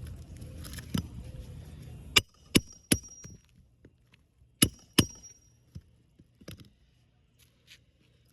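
Hammer driving a nail back into asphalt roof shingles: three sharp metallic strikes about two seconds in, two more near the middle with a short ring after them, then a few light taps. A low rumble stops just before the first strike.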